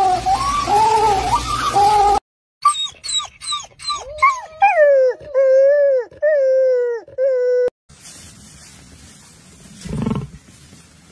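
Red fox calling: a run of short sharp yelps, then several longer whining calls that drop in pitch at their ends. Before the fox calls there are about two seconds of a rhythmic, repeating pitched sound, and near the end there is one short low grunt.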